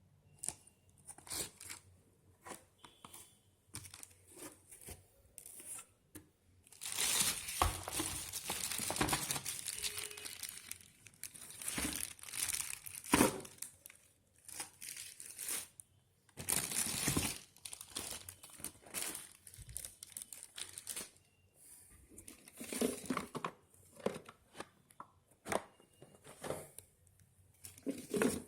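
Packaging being handled and opened: plastic wrapping crinkling and tearing in irregular bursts, with a few longer stretches of ripping or peeling.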